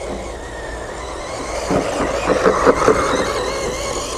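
Brushed 390 electric motor and gearbox of a 1/12-scale 4WD RC truck whining as it drives over grass, with a stretch of rattling from the drivetrain and suspension about halfway through.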